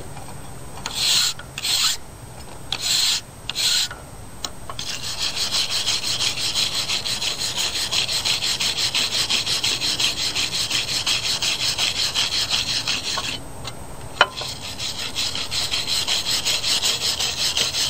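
A brush scrubbing across the teeth of a steel file, clearing rust and deposits out of the teeth after a vinegar soak. It begins with four slow separate strokes, then settles into fast, even back-and-forth scrubbing, broken once by a short pause with a single click.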